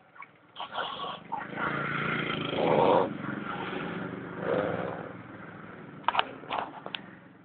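Loud, rough snoring: a long breath that builds to a peak about three seconds in, then a weaker breath with a swell a little later. A few short sharp sounds follow near the end.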